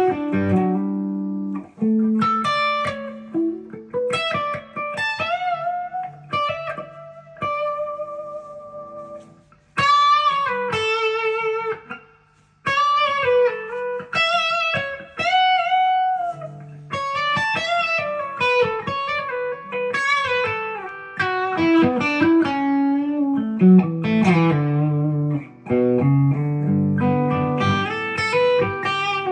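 Epiphone Les Paul Custom electric guitar played through an amp: a melodic lead line of single notes, several bent or shaken with vibrato, moving into fuller chord-like phrases near the end.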